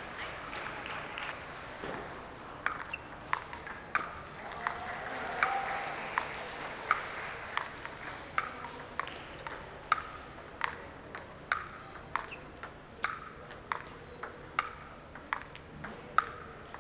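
Table tennis rally with sandpaper-faced bats: the ball clicks sharply off bat and table in turn at a steady, even pace. The rally starts about three seconds in and runs on as a long exchange.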